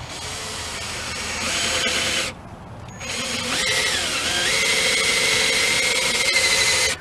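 Cordless drill boring a shallow 5/16-inch pilot hole into an aluminum piston to take weight off it. It runs in two bursts: about two seconds, a short pause, then about four seconds. In the second burst the motor pitch dips and climbs before holding steady.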